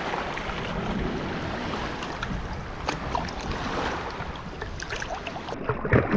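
Shallow surf water sloshing and lapping around hands and legs as a snook is held in the water and released, with wind buffeting the microphone. A sharper splash comes near the end.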